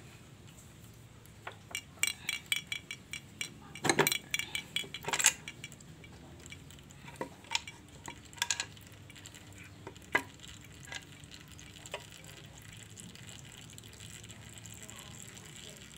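Irregular metallic clinks, taps and knocks of tools and bolts against the motorcycle's clutch cover as the cover is worked loose and pulled off the engine. The noise is busiest and loudest about two to five seconds in, then thins to a few separate clicks and stops well before the end.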